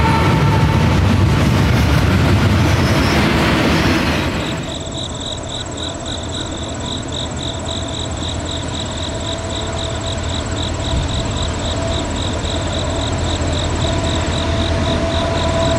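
Norfolk Southern freight train rolling past close by, a loud noise of wheels on rail, for about the first four and a half seconds. Then an abrupt cut to a diesel-led train approaching from a distance: a quieter low rumble that grows slowly louder, with a rapid high pulsing sound over it.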